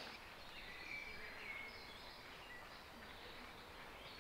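Faint birds chirping a few short calls over a quiet outdoor background.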